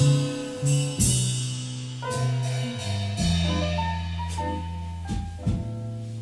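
Instrumental passage of a song: sustained bass notes under ringing higher notes, with sharp drum or cymbal hits about once a second.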